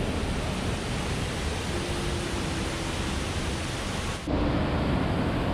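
Waterfall's steady rushing noise of falling water. About four seconds in it changes abruptly to a duller tone.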